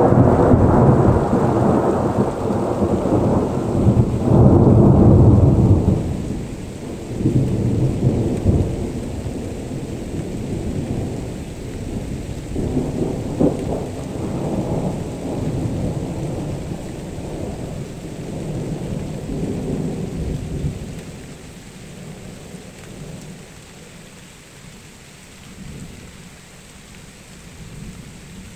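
Rolling thunder: a long low rumble that swells again about four seconds in, then rolls on in weaker waves and dies away over about twenty seconds. After that, the steady hiss of rain remains.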